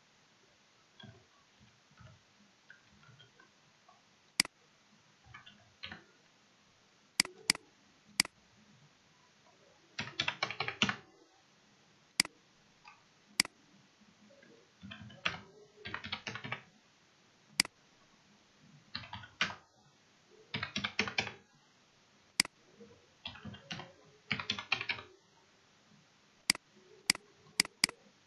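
Typing on a computer keyboard in several quick bursts of about a second each, with single sharp mouse clicks scattered between them.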